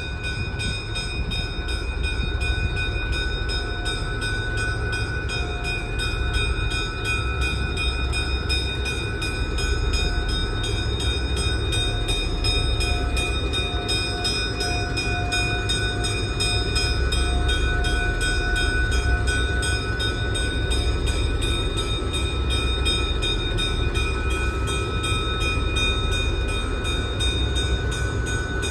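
Burlington E5A 'Silver Pilot' passenger diesel locomotive, with its twin EMD 567 V12 two-stroke engines, running as it rolls slowly past at close range: a steady low drone with a few thin, steady tones above it.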